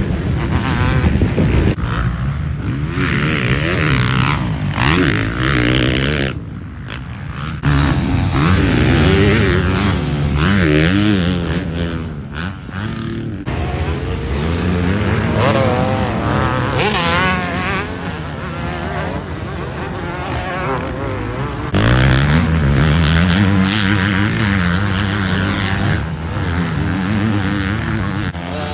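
Motocross bike engines revving hard and easing off as the bikes race through corners, the pitch rising and falling over and over. The sound changes abruptly several times between passes.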